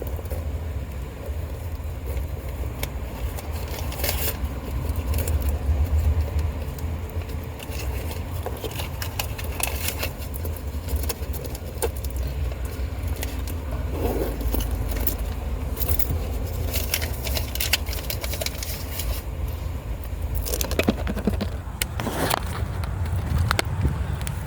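Coin-operated car vacuum running with a steady low rumble, its nozzle scraping and clicking repeatedly as it works over a car's dusty interior.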